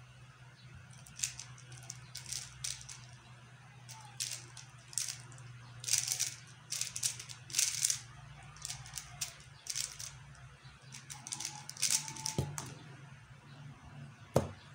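QiYi X-Man Tornado V1 3x3 speedcube being turned fast, a run of plastic clicking and clacking in quick bursts, followed by a single sharp knock near the end.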